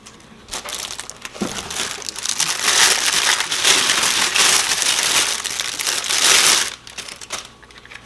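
Packaging being crumpled and rustled as a steering hub is unwrapped from its wrapping bag: a continuous crinkling that builds over the first couple of seconds and stops abruptly about a second before the end.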